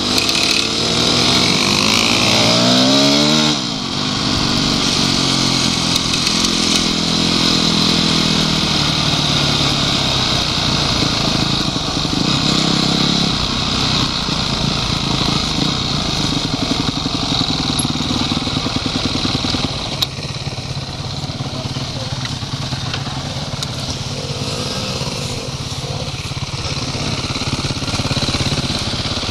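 Off-road motorcycle engine under way. Its pitch climbs over the first few seconds as it revs, then it holds a steady running note that eases off a little about twenty seconds in.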